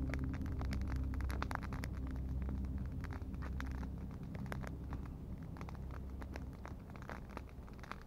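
Campfire of dry sticks and branches crackling with irregular sharp pops, over a low steady rumble that fades toward the end.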